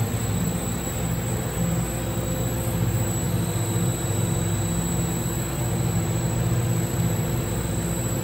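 Moto Guzzi V7 850's air-cooled transverse V-twin running at a steady speed on a dynamometer during a measurement run, under a steady rushing noise. It breathes through an open sport air filter and exhausts through Mistral mufflers.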